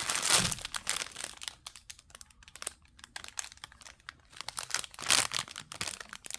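Clear plastic bags of square diamond-painting drills crinkling as they are handled. The crinkling comes in bursts: a busy run in the first second and a half, scattered faint rustles, then a louder crinkle about five seconds in.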